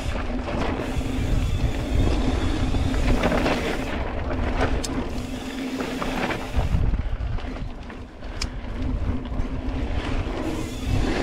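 Wind buffeting the microphone of a camera on a moving mountain bike, over the rush of tyres rolling on a dirt trail, with a steady hum under it and a couple of sharp rattles from the bike over bumps.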